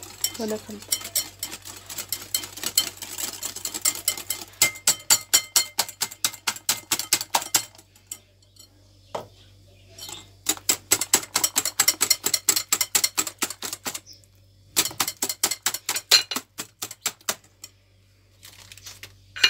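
Wire whisk beating a liquid egg, sugar and oil batter in a glass bowl: rapid, rhythmic clinks of the wires against the glass, in three spells with short pauses between them.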